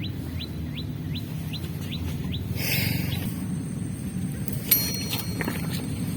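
A bird calling a fast series of short rising notes, about two and a half a second, which stops about two and a half seconds in, over a steady low rumble. Near the end comes a single sharp click with a brief ringing.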